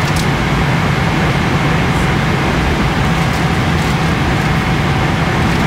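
Steady, loud cabin drone of a Boeing 777-300ER airliner in flight, engine and airflow noise with a low hum and faint steady whines. A few faint rustles of a laminated safety card and a magazine being handled.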